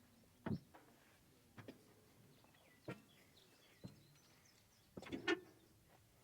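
A few sharp knocks and clinks, about six in all, spaced a second or so apart, with a quick double knock near the end the loudest. Faint bird chirps sound in the background.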